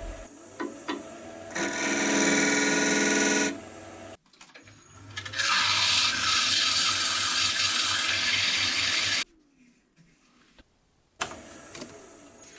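Wood lathe running while a turning tool cuts into spinning wooden blanks, in several short clips that cut in and out abruptly. The motor's whine rises as it spins up before the longest cut and falls away near the end as it slows.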